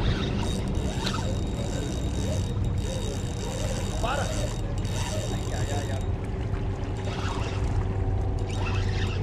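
Spinning reel and bent rod working a hooked snook, over a steady low engine-like hum, with faint voices.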